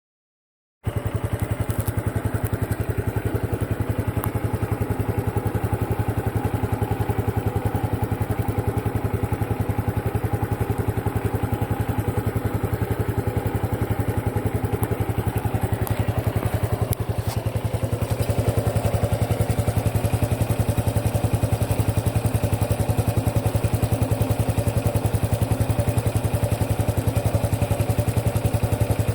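Honda Super Cub 110 Pro's air-cooled single-cylinder engine running steadily with a rapid, even pulse and an abnormal mechanical noise that an oil change, done to cure it, has not removed. The sound starts just under a second in, and its tone shifts slightly about seventeen seconds in.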